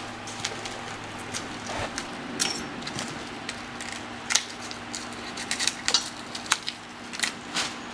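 Plastic stretch wrap on shipping packaging being cut and pulled off, giving a string of irregular sharp crackles and clicks.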